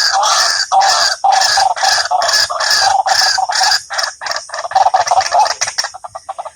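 Recorded fowl-like bird call played as a lure from a mobile phone's speaker, repeated in quick notes about two a second. It cuts off abruptly near the end.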